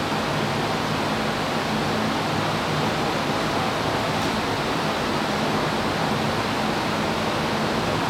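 Steady, even whooshing of the many cooling fans of a room full of GPU cryptocurrency mining rigs running together, with a faint low hum underneath.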